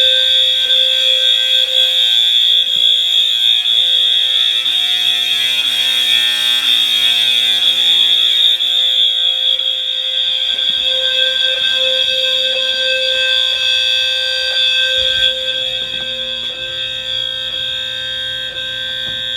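Fire alarm horns sounding continuously, not in code-3 pulses: a piercing steady high electronic tone over the coarse buzz of an AC horn. The loudness eases slightly in the last few seconds.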